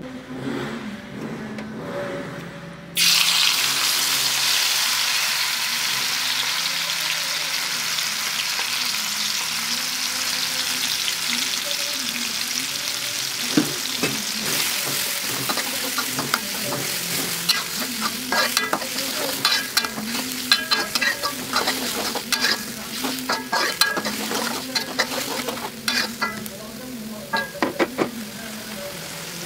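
Blended chilli, shallot, tomato and garlic paste frying in hot oil in a wok, starting with a sudden loud sizzle about three seconds in as it hits the oil. From about halfway on it is stirred, with many short scrapes and clicks against the wok over the steady sizzle. This is the paste being sautéed down in oil.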